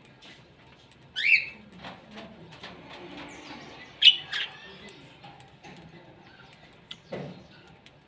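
Small pet parrots (budgerigars and a lovebird) in an aviary chirping: two loud, sharp calls, one about a second in and a doubled one about four seconds in. Softer chatter and small clicks fall in between, and there is a dull thump near the end.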